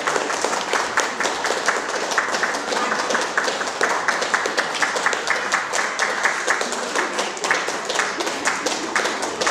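Audience applauding: many hands clapping steadily and irregularly.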